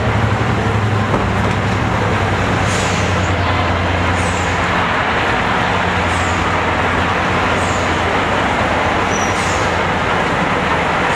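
Class 55 Deltic diesel locomotive running slowly past on its twin Napier Deltic two-stroke engines: a loud, steady drone over a low hum. Short high squeaks recur about every second and a half.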